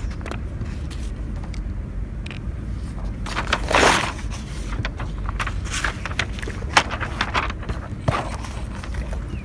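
Outdoor background noise: a steady low rumble with scattered light clicks and taps, and a short rush of noise about three and a half seconds in.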